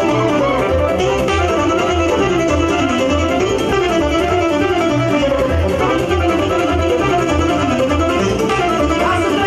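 Lively Romanian folk dance music from a live party band: a steady bass beat about twice a second under a quick, winding melody.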